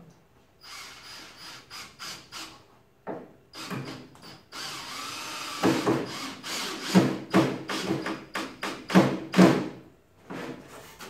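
Cordless drill run in a string of short trigger bursts, boring into a wooden board. About halfway through there is one longer, steadier run.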